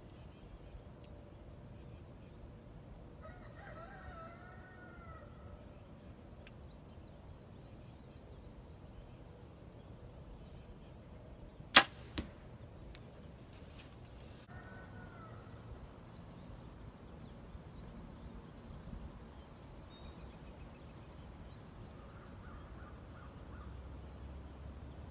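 An 80 lb Hoyt Carbon Defiant 34 compound bow shot once about halfway through: a single sharp snap of the string, followed by two fainter knocks within about a second.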